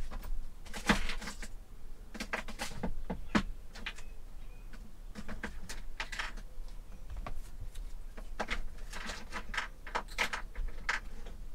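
Scattered clicks, knocks and rattles of hands working at a motorhome's overhead locker and its door, with things being handled inside it.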